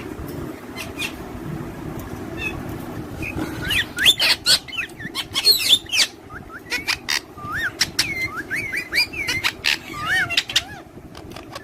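Pet parrots chirping: many short whistled calls that slide up and down in pitch, mixed with sharp clicks, starting a few seconds in over a steady low hum.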